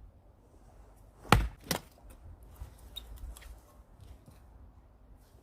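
Rinaldi American axe chopping into dry birch wood: two sharp strikes about half a second apart, a little over a second in, the first the louder.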